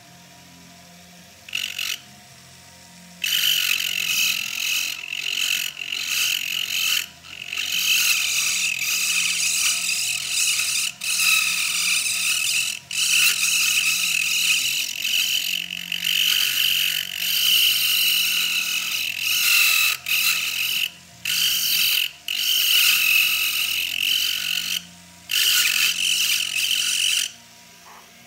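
A small rotary handpiece with a burr cutting into the bit of a metal key: a high, grinding whine that comes in long stretches broken by brief pauses. After a short touch about two seconds in, it starts for good about three seconds in and stops shortly before the end.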